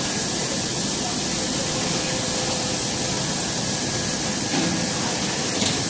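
Steady hiss of running machinery and moving air, with a faint steady high whine, from a working automated circuit-board inspection machine and the equipment around it. A small tap comes near the end.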